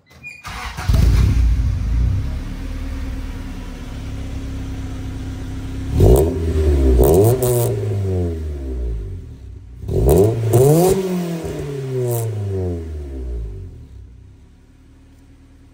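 1990 Honda Civic EF hatchback's four-cylinder engine running through a Yonaka aftermarket exhaust. It idles, is revved twice, each time rising in pitch and falling back to idle, and settles to a much quieter idle near the end.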